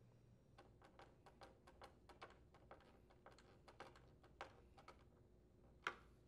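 Faint, irregular clicks and ticks of a screwdriver turning mounting screws into the leaf blower's plastic housing, with a somewhat louder tap near the end.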